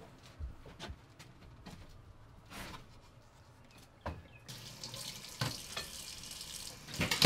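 A few faint scattered knocks and shuffles, then about four and a half seconds in a kitchen tap starts running into a sink with a steady hiss of water. A couple of loud thumps near the end.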